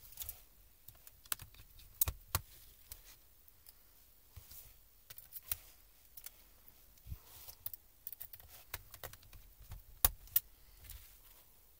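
A small screwdriver and fingers working on the thin metal keyboard plate of a laptop top case: scattered metallic clicks, ticks and short scrapes, with the sharpest clicks about two seconds in and again near the ten-second mark.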